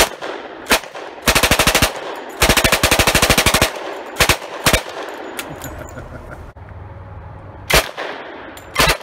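1943 Thompson M1A1 submachine gun firing .45 ACP on full auto: two short bursts at about a dozen rounds a second, the second just over a second long, with single and paired shots before and after.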